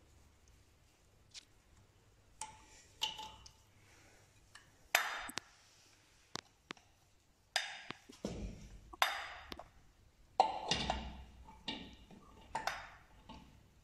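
Metal parts of a Peugeot 103 moped engine clinking and knocking as the clutch assembly is handled and fitted onto the crankshaft: irregular sharp clicks with a brief metallic ring, a few a second from about two seconds in.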